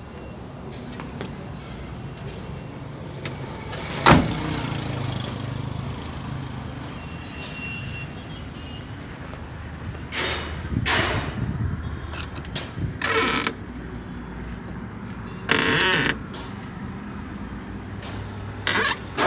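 Truck engine running steadily, with a sharp bang about four seconds in and several short hissing bursts later on.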